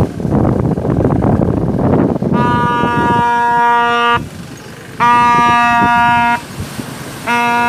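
A horn sounding three long, steady blasts about a second apart, each lasting roughly a second and a half, starting about two seconds in. Before the blasts there is a loud rushing noise.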